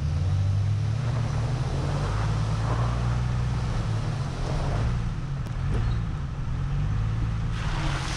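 Jeep engine running with a low, steady drone. A broad rush of wind noise on the microphone comes in near the end.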